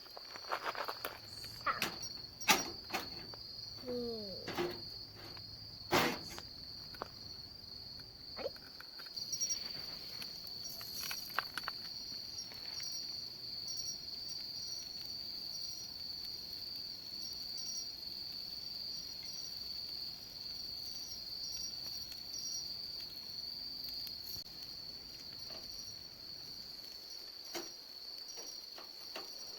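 Insects singing a steady, high-pitched trill without a break. Over the first several seconds there is also a scattered series of sharp clicks and knocks.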